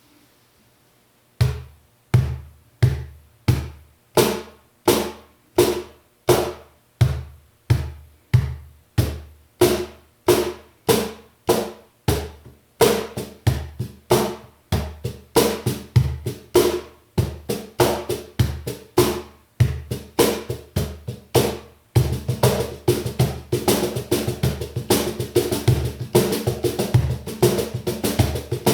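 López de la Higuera cajón with unmuted snare wires, played by hand. It starts with single strokes about one and a half a second, each with a deep low tone and a sharp upper part. The playing grows busier, then becomes a rapid, dense pattern about 22 seconds in.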